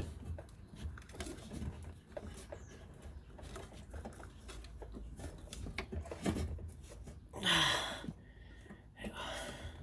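Light knocks, clicks and rubbing of hands working rubber fuel hoses and hose clamps onto a fuel filler neck, with one louder brief rush of noise about three-quarters of the way through.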